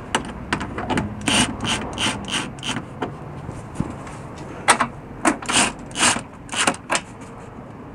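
Cordless drill-driver running in a quick run of short spurts, about three a second, lightly driving a screw into the plastic bumper cover. About five seconds in comes a second cluster of scraping and clicking from the plastic fender liner being worked into place.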